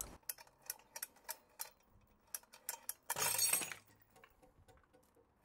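Metal hooks and fixture of a shear-test rig hanging from a crane scale, clicking and clinking in separate ticks as they are pulled down under load. About three seconds in comes a short, louder clatter as the 5 mm 3D-printed ABS test pin shears.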